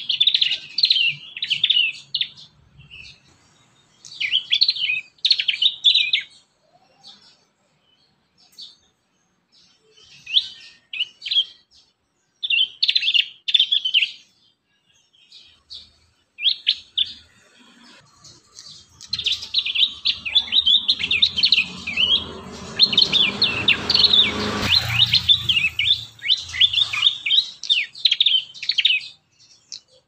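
Young prinias (prenjak) chirping in rapid, high-pitched bursts. There are several short spells in the first half, then almost continuous chirping for about ten seconds in the second half. A low rumble sits under the later part.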